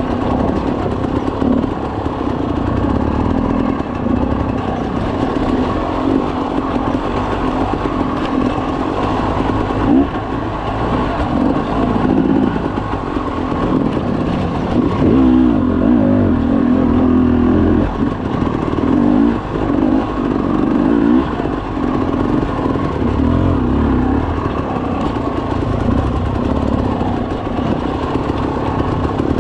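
Dirt bike engine running under load, rising and falling in pitch as the throttle is opened and closed, with several harder revs in the middle.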